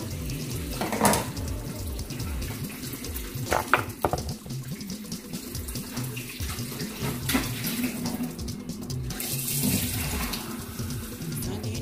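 Kitchen tap running water into a sink, with a few sharp knocks and clinks.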